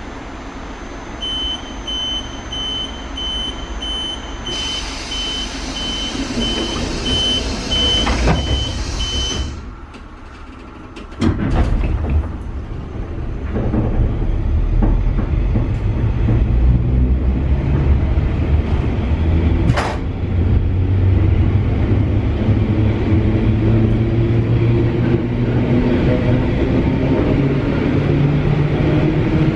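Door-closing warning beeps of an EN71 electric multiple unit: a rapid high beeping for several seconds, after which the doors shut. About eleven seconds in a loud low rumble starts suddenly as the train pulls away, and the traction motors' hum rises steadily in pitch as it gathers speed.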